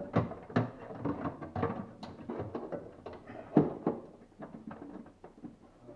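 Power window regulator and motor assembly being worked out of a car's rear door, knocking and scraping irregularly against the door's inner panel, with one loudest thunk about three and a half seconds in.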